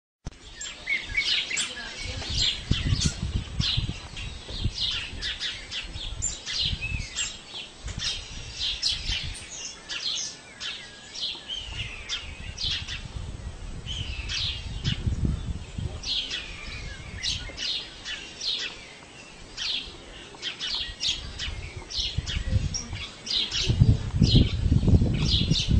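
Small birds chirping and tweeting over and over, with a low rumble underneath that comes and goes and is loudest near the end.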